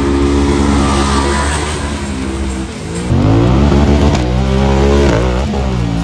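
A side-by-side UTV's engine revving hard under full throttle. The pitch sags briefly about three seconds in, then climbs again and grows louder.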